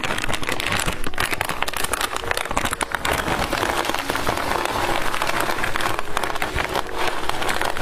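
Close-miked plastic candy wrapper crinkling and crackling densely and without a break as a pearl-sugar candy stick is unwrapped.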